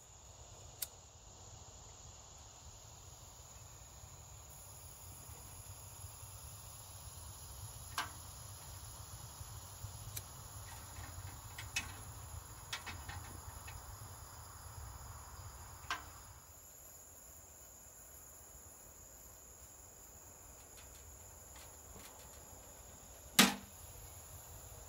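Steady high-pitched buzz of insects with a handful of light clicks scattered through, and one sharp, loud knock near the end.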